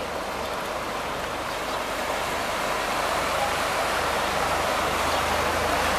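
City bus pushing through deep floodwater, its bow wave and wake making a steady rushing, splashing wash that grows louder as the bus comes closer.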